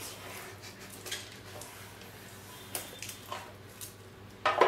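Cardboard packaging being handled as a portable speaker is pulled out of its box: scattered light knocks, scrapes and rustles, with a louder burst near the end.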